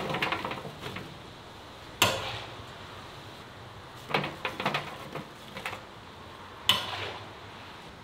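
Kitchen utensils knocking and clattering against cookware: sharp clanks at the start, about two seconds in and near the end, with a quick run of smaller clatters in between.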